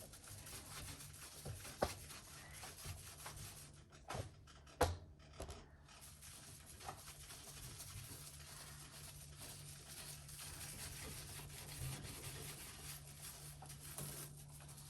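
Cloth rubbing and wiping over the plastic walls and shelves of a fridge interior, with a few light knocks. A low steady hum runs underneath.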